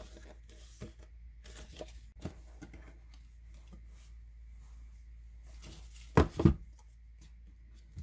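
Pages of a photobook turned and the book handled, then two loud knocks close together about six seconds in as a Blu-ray box set is put down on the table.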